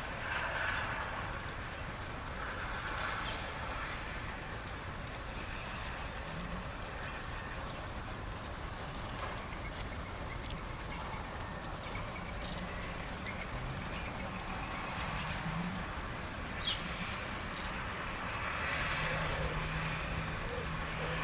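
Small birds giving short, high chip notes, scattered irregularly over a steady outdoor background hiss.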